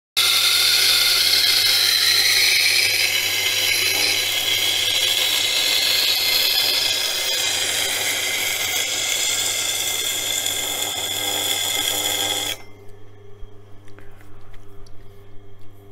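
Knife edge, clamped in a jig, ground against a coarse 80-grit wheel on a Tormek-style sharpening machine: a steady grinding hiss whose pitch shifts slowly as the edge is swept across the wheel, grinding a 20° bevel until a burr forms along the edge. The grinding cuts off suddenly about twelve seconds in, leaving the machine's motor humming and a few light clicks.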